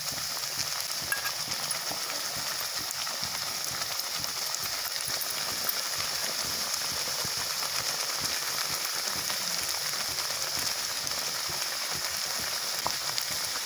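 Spinach puree simmering in a metal kadhai: a steady crackling sizzle with many small pops as thick bubbles burst.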